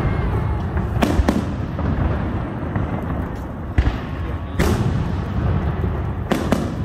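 Aerial fireworks shells bursting overhead: about five sharp bangs spread through, two close together about a second in, over a steady low rumble.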